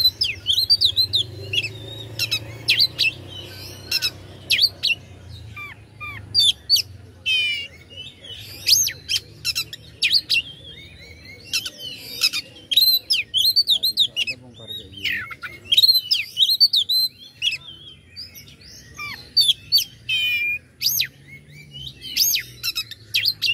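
Oriental magpie-robin (kacer) singing an aggressive, varied song of rapid whistles, chirps and short trills, with brief pauses between phrases. It is the kind of fighting song played to provoke rival birds.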